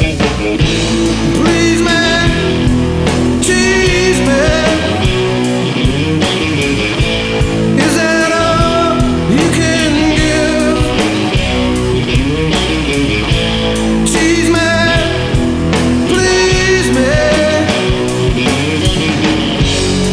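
Rock song playing: a singing voice over guitar and drums.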